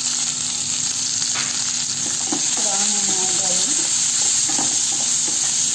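Chopped onion sizzling steadily as it fries in hot oil in a pan, with the mustard seed, urad dal and green chilli tempering.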